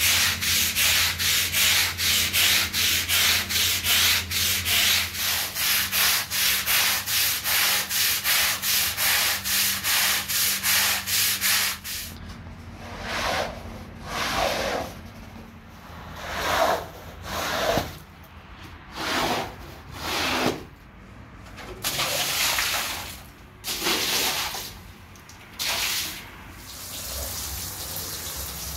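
Stiff-bristled push broom scrubbing a rug in quick, even strokes, about three a second. About twelve seconds in it gives way to a rubber floor squeegee dragged across the wet rug in separate swishes. Near the end a steady stream of water runs onto the rug.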